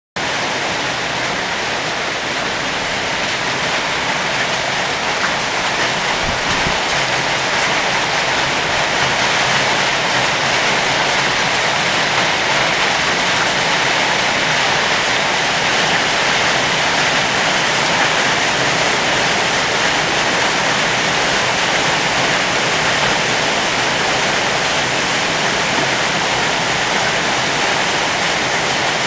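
Heavy summer-storm downpour: a dense, steady hiss of rain pouring down, growing a little louder in the first few seconds.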